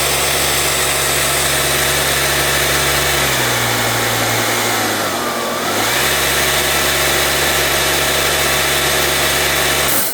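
Kärcher compact electric pressure washer running close up, with a steady motor-and-pump hum. About midway its pitch sags for a couple of seconds, then recovers, and the machine cuts off at the end.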